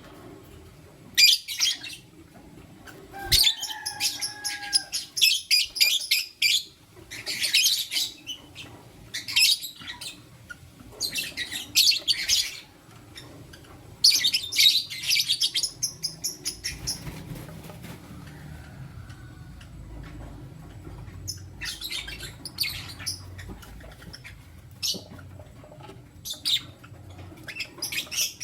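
Lovebirds, a lutino and its mate, chirping in rapid high-pitched bursts a second or two long with short pauses between, quieter for several seconds past the middle.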